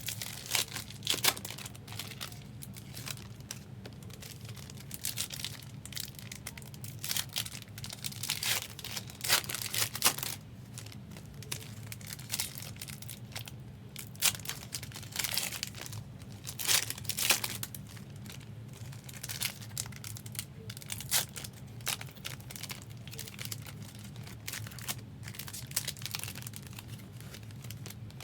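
Foil trading-card pack wrappers being torn open and crinkled in the hands, in irregular bursts of crackling, over a steady low hum.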